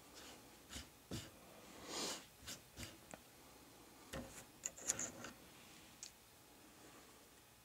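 Scattered light metal taps and clicks, about a dozen spread over six seconds, one pair near the middle with a brief high ring: a punch being tapped against a 1911's stock sight to drift the last of it out of the slide's dovetail.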